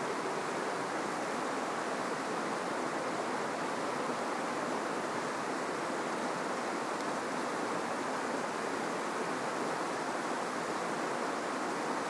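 River water rushing steadily, an even wash of sound that holds at one level throughout.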